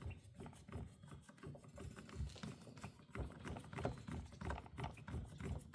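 Faint, irregular clicking and tapping of small tools and chainsaw parts being handled.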